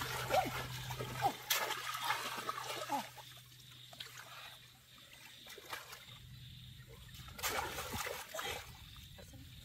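Water splashing and trickling, busiest over the first three seconds, then quieter, with another short burst of splashing near the end.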